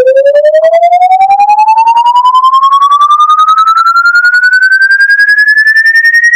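A loud electronic tone with a quick, even pulse, sliding steadily and smoothly upward in pitch from low to high like a slow siren sweep.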